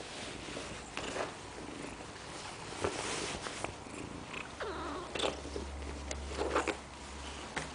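A kitten purring close up, the purr swelling deeper and stronger about halfway through, with brushing and rustling as its fur and the canvas jacket rub against the microphone.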